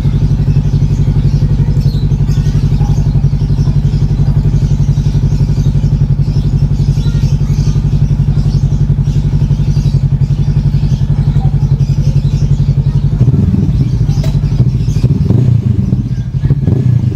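Honda CB500X's parallel-twin engine idling steadily. About 13 seconds in, the sound turns uneven, with knocks and clatter.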